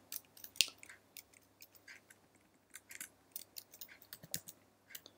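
Computer keyboard typing: faint, irregular keystroke clicks as text is deleted and retyped.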